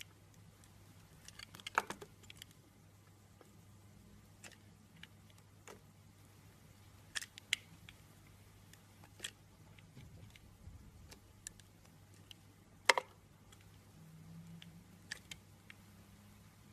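Knife cutting through bar soap: scattered crisp, crunchy clicks and cracks, the sharpest about two seconds in and again about thirteen seconds in, over a faint low hum.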